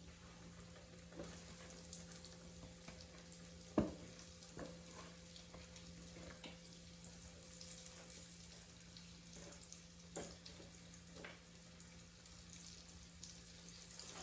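Flour-dredged turkey chops frying in hot oil in a skillet: a steady sizzle with scattered crackles and pops. A single sharp knock about four seconds in.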